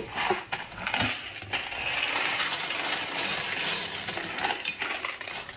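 Dry macaroni pasta poured from a glass bowl into a cast iron pot of oil: a dense, steady pouring rush for about two seconds, with a few knocks from the bowl being handled before it and scattered clicks after.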